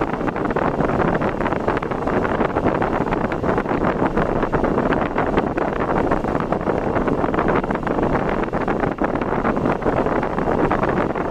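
Steady rush of wind buffeting the microphone over the road noise of a vehicle travelling at speed, with no distinct engine note.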